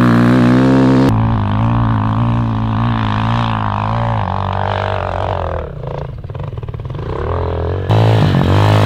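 Four-stroke single-cylinder 250cc dirt bike engine running under throttle off-road. Its pitch holds and wavers, dropping and easing off in the middle. The sound changes abruptly about a second in and again near the end, where riding clips are cut together.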